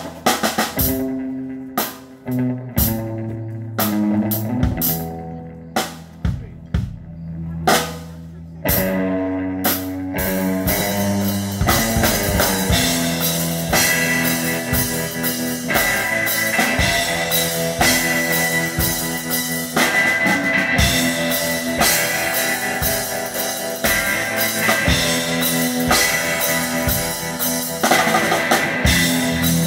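A band playing live on drum kit and guitar. For the first eight seconds or so it plays separate accented hits over held low notes. About nine seconds in it breaks into full, continuous playing with a steady beat.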